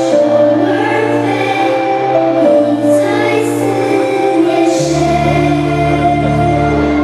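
Music with a choir singing long held chords; deep bass notes come in about five seconds in.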